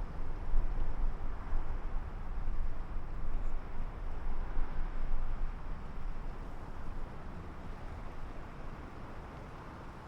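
Sea waves washing on the shore, with wind gusting over the microphone as a rumbling buffet; both ease off toward the end.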